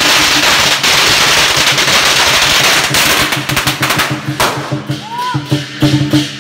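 A string of firecrackers going off in a rapid, continuous crackle for about four seconds. Lion-dance drum and cymbal music comes back in over the last two seconds.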